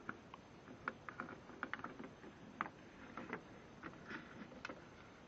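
Light, irregular clicks and taps of small bits and tools being handled in a mechanic's tool kit case.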